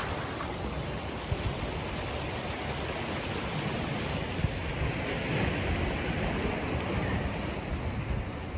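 Steady wash of surf breaking over a boulder shore, with wind buffeting the microphone.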